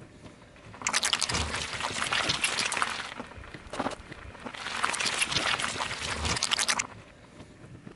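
A car tyre rolling onto a block of red jelly and squashing it with a wet, crackly squelch. It is heard twice, each time for about two seconds, with a short lull between.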